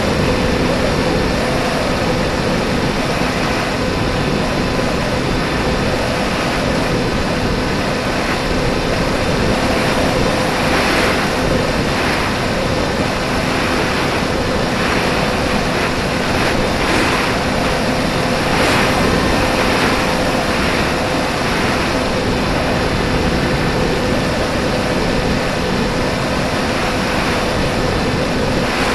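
Radio-controlled plane's motor and propeller running at a steady pitch, heard from a camera on board with wind rushing past it. Several brief louder gusts of wind noise come between about ten and twenty seconds in.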